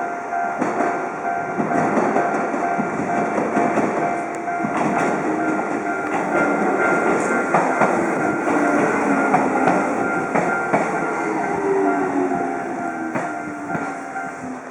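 An Enshū Railway electric train rolls through a level crossing, its wheels clicking over the rail joints, while the crossing bell rings steadily. From about six seconds in, a whine slowly falls in pitch, and the whole sound fades near the end.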